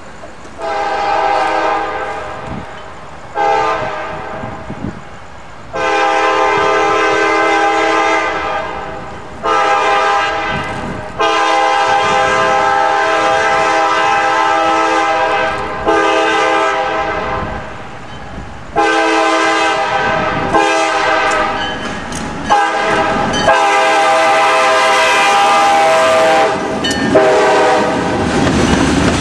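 CSX freight locomotive's air horn sounding a chord in a long series of blasts, some long and some short, for the grade crossing: really loud. Near the end the train's wheels start clattering over the rails as it passes.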